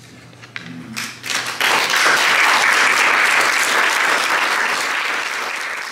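Audience applauding after a reading. A few first claps come about a second in, then full applause builds and slowly tapers off.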